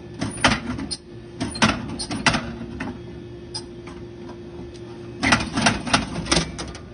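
Snack vending machine with a bag of chips stuck in it: a steady hum with three bunches of sharp clicks and knocks, the hum cutting off about five seconds in.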